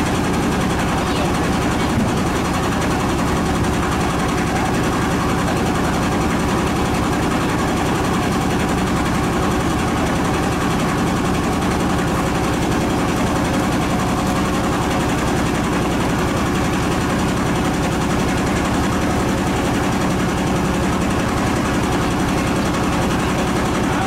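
Fishing boat's diesel engine running steadily with a fast, even chugging.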